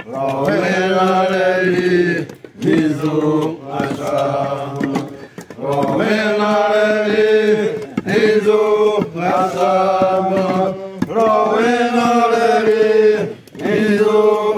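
A group of Xerente men chanting together in long held notes, in phrases of a second or three separated by short breaks for breath.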